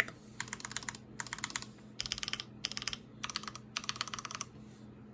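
Custom mechanical keyboard in an acrylic GOK 7V case, with MX Ultra-Glide Black linear switches on 62 g TX springs, an aluminium plate and GMK keycaps, being typed on in quick bursts of keystrokes with short pauses between. The typing stops about four and a half seconds in.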